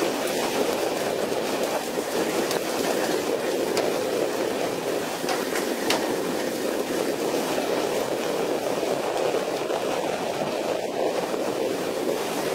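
Steady rushing of rough sea and spray along the side of a pole-and-line tuna boat, with a few faint knocks.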